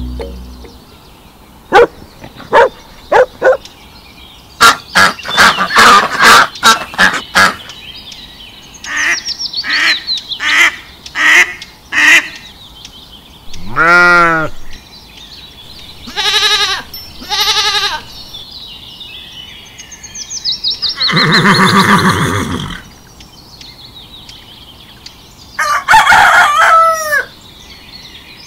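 A string of separate farm-animal calls laid in as sound effects, mostly poultry clucking, crowing and honking, with short pauses between the calls.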